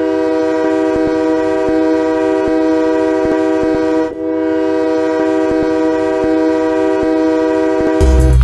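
Ice hockey goal horn (the Windsor Spitfires' horn) blowing a loud, steady blast with a brief break about four seconds in, then blowing again. Pop music cuts in just before the end.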